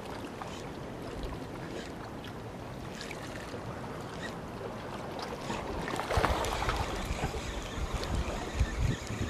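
Wind blowing over the microphone, gusting harder from about six seconds in, with scattered faint ticks.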